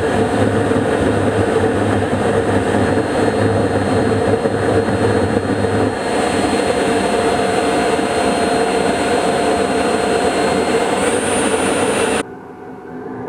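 Valveless pulse jet, fed by a 70 mm electric ducted fan at its intake, running flat out on a test stand: a loud, steady, dense roar with one strong steady tone running through it. About twelve seconds in, the sound abruptly becomes quieter and duller.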